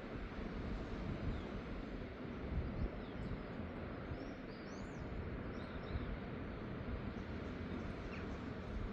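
Steady low rushing of wind and sea surf at the shore, with a few short, high bird chirps in the middle.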